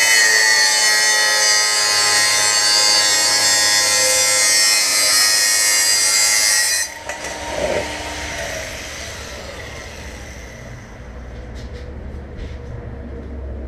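Cordless angle grinder cutting the top off an old brass car headlight reflector: a loud, high grinding with ringing tones. About seven seconds in it is switched off and the disc spins down with a falling whine over a couple of seconds, followed by a few faint clicks and knocks.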